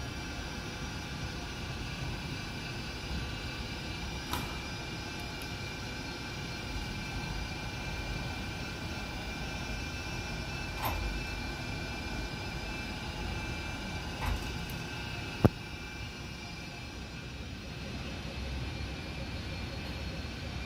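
Fadal 5020 vertical machining center powered up: a steady mechanical hum with several high, even whining tones. A few soft knocks and one sharp click about three-quarters of the way through break it.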